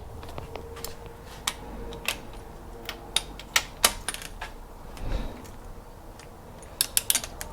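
Click-type torque wrench working round the cylinder head stud nuts of a 2JZ engine: scattered sharp ratchet clicks, then a quick run of clicks near the end. This is the second of three tightening passes, at 52 ft-lb.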